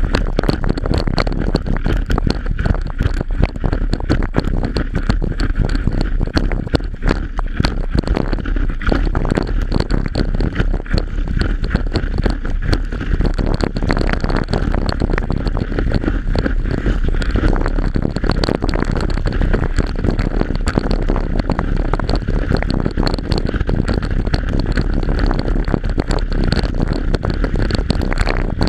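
Steady, loud wind buffeting on the microphone mixed with rushing, splashing water, from being towed at speed over the water behind a motorboat.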